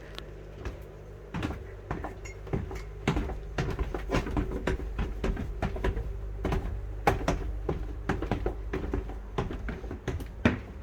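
Irregular knocks and clatter, starting about a second and a half in, over a steady low hum.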